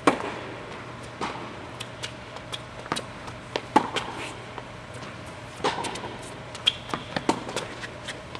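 Tennis ball struck by rackets in a doubles rally on an indoor court: a loud serve hit right at the start, then a string of sharper and fainter racket hits and ball bounces at irregular intervals.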